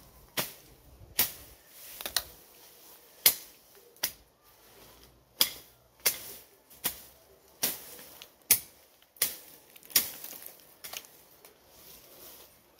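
Weeds and grass being chopped down by hand: a series of sharp, separate chopping strikes, a little more than one a second at an uneven pace.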